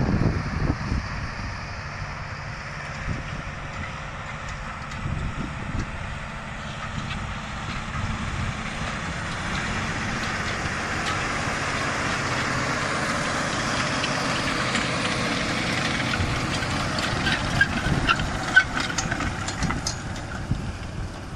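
John Deere 9620RX quad-track tractor's diesel engine running under load as it pulls a Horsch Joker disc harrow through the soil, growing louder as it comes nearer. A few sharp clicks and clanks sound near the end.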